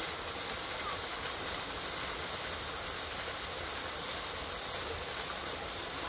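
Steady rushing of the Dreimühlen waterfall: falling water making an even, unbroken hiss.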